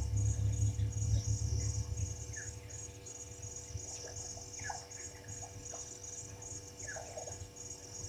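Outdoor bush ambience: a high-pitched pulsing chorus repeating about three times a second, with a few short scattered chirping calls. A low rumble is heard in the first two seconds and then fades.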